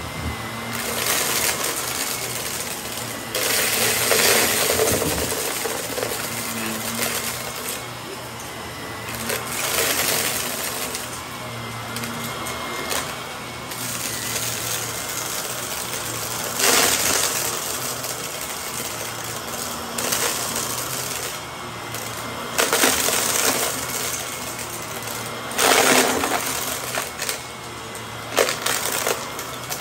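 Bagless upright vacuum running over a shag rug, its motor giving a steady whine, with about eight loud bursts of crunching and rattling as it sucks up piles of gritty debris into its canister.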